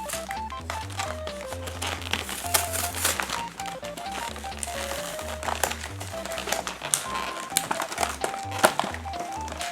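Light background music, a simple stepping melody over a repeating bass line, with plastic packaging crinkling and clicking as a toy blister pack is torn open by hand.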